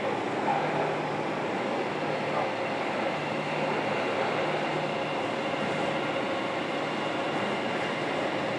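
Interior running noise of a JR Kyushu 305 series EMU with Toshiba permanent-magnet (PMSM) traction motors, heard inside the motor car in a subway tunnel. A steady rumble of wheels and car body, with faint steady motor tones over it.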